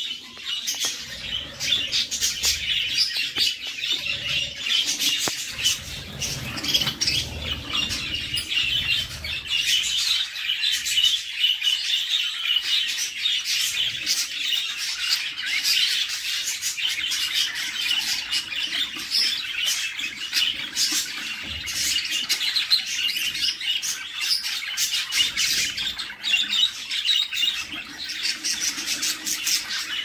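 Budgerigar chicks chirping and chittering without a break in the nest box, a dense stream of rapid high-pitched cheeps typical of chicks begging to be fed. Low rustling of movement in the nest bedding comes and goes.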